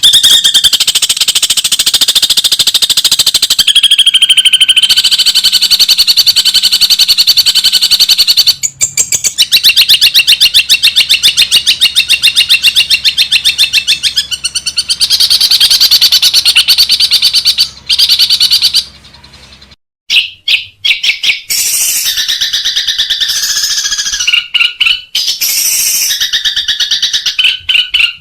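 Long-tailed shrike (cendet) singing a loud, very rapid chattering song of fast repeated notes, with short breaks and a pause about two-thirds through, then choppier, separated phrases.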